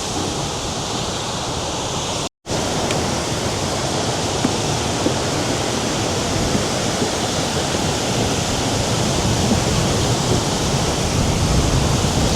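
Steady rush of Lake Superior surf on the shore. It is broken by a split-second dropout about two seconds in and grows a little louder toward the end.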